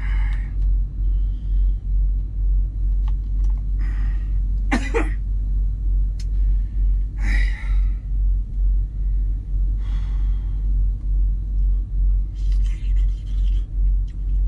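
Steady, pulsing low rumble of a semi truck's idling diesel engine heard inside the cab, with a few short throat and breath sounds from someone eating, about five seconds and seven seconds in.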